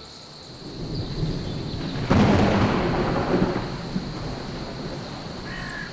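Thunder rumbling up to a loud clap about two seconds in, then rolling away, with rain. A crow begins cawing near the end.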